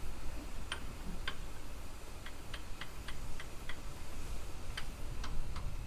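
About a dozen sharp clicks from the railway track at uneven spacing, some in quick runs of three or four, over a steady low rumble as the steam train moves away.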